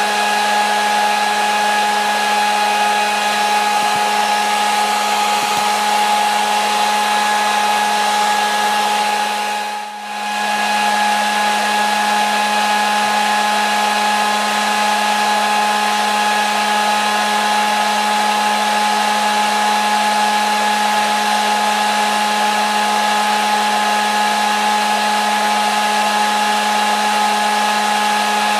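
Hair dryer running steadily: a constant rushing airflow with a steady motor hum and whine. The sound dips briefly about ten seconds in, then carries on unchanged.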